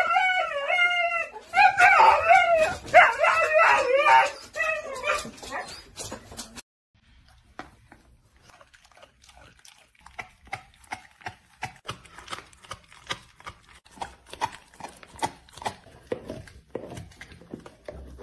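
A husky vocalising in long pitched calls that waver up and down. It cuts off suddenly, and a Rottweiler follows, chewing a raw meaty bone in a long run of quiet, sharp crunching clicks.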